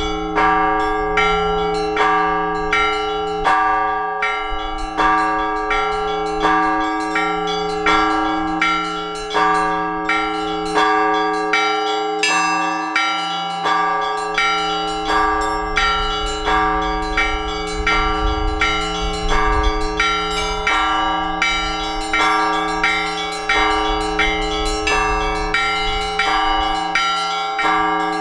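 Orthodox church bells rung together by a bell ringer. Low bells hum steadily beneath quick, rhythmic strikes of smaller bells, about two strokes a second.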